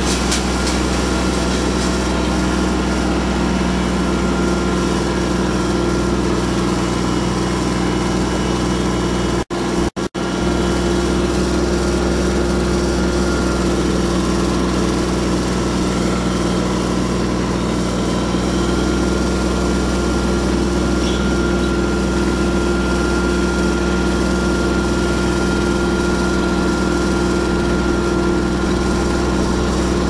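Small tractor's engine running steadily at a constant speed while driving, carrying a load in a crate on the back. The sound cuts out twice very briefly about ten seconds in.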